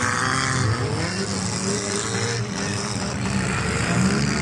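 Several demolition-derby cars' engines running and revving together, their pitch rising and falling as the drivers accelerate and back off.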